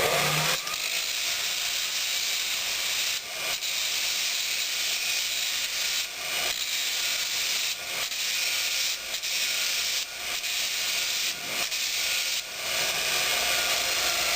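Multitool 2x36-inch belt grinder attachment on a bench grinder, running a 40-grit belt against a rusty steel railway spike: a steady hissing grind of metal on abrasive as scale and rust are stripped from the spike's top. It eases off briefly about ten times along the way.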